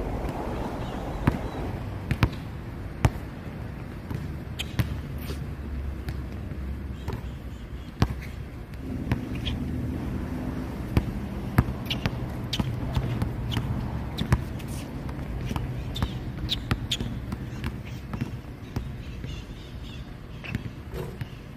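A basketball bouncing on an outdoor hard court as it is dribbled and shot: sharp, irregular slaps of the ball about once a second, over a steady low background hum.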